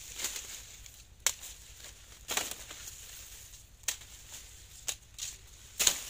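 Dry sugarcane leaves and stalks rustling and crackling as cane is worked by hand during harvest, with about six sharp cracks or snaps. The loudest come about a second in and near the end.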